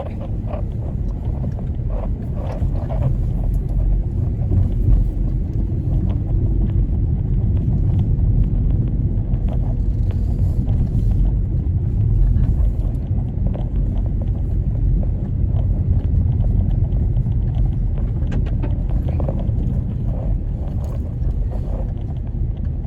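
Car driving along a road, heard from inside: a steady low rumble of road, tyre and engine noise.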